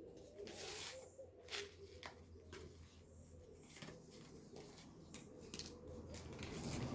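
A dove cooing faintly in repeated low notes, with scattered short clicks and rustles over it.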